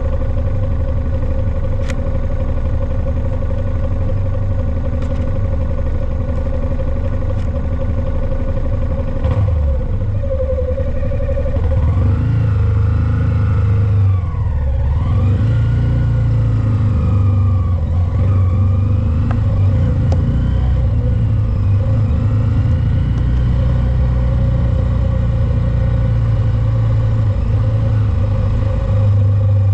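2022 Honda Grom's 125 cc single-cylinder engine running on the move. It is steady at first, then from about halfway its pitch dips and rises several times as the revs fall and climb.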